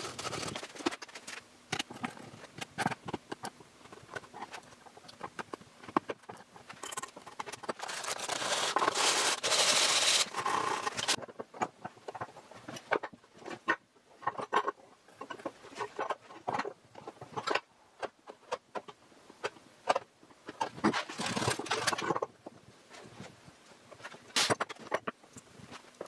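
Hand sanding of wood with a folded strip of sandpaper: scratchy rasping strokes, loudest for a couple of seconds about eight seconds in, among light scrapes and clicks of small metal hinge hardware being set down on the wooden box.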